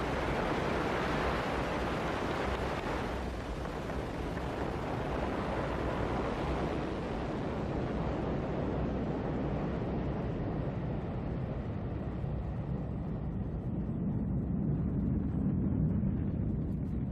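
Ariane 5 rocket's solid boosters and main engine at liftoff: a steady rushing rumble. Its hiss fades gradually as the rocket climbs away, leaving the low rumble.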